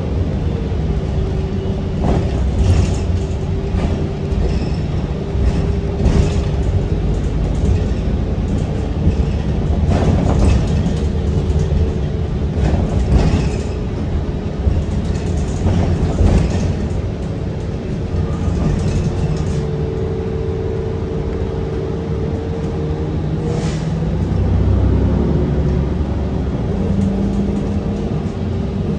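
Inside a moving city transit bus: a steady low rumble with a constant humming whine from the drive, and frequent short rattles and clunks from the bus body.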